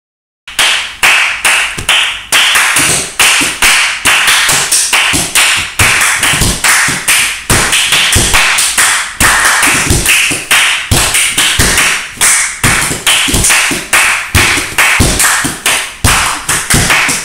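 Hand percussion on a leather couch: palms slapping the cushions for deep thumps, mixed with sharp claps and taps in a fast steady beat. It starts about half a second in.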